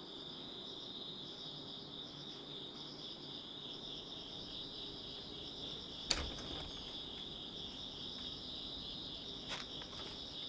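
Crickets chirping in a steady, fast-pulsing high trill, with a single sharp knock about six seconds in and a fainter one near the end.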